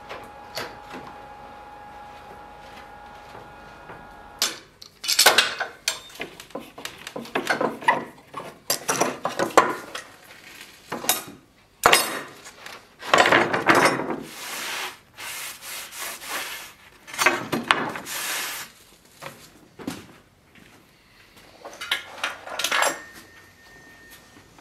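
A steel sword blade scraped and rubbed against a charred wooden plank in repeated rough strokes of about a second each, with short pauses between.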